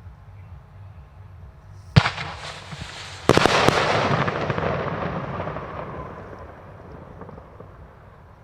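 Fireworks going off: a single sharp bang about two seconds in, then a quick volley of bangs a second later, followed by dense crackling that slowly fades away.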